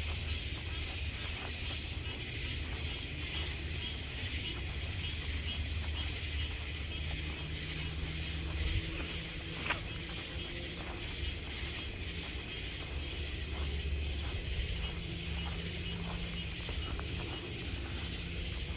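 Night insects chirping steadily in a continuous chorus over a low, steady rumble, with one short click about halfway through.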